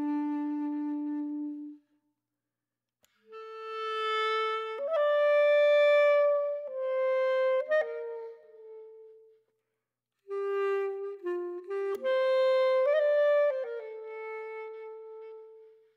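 Background music: a single melody line of held notes that step up and down, breaking off twice for about a second.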